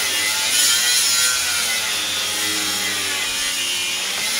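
Steel knife blade, forged from a ship's engine valve and freshly hardened, scraping and shaving along a wooden post in a steady rasping rub while its hardened edge is tested on the wood.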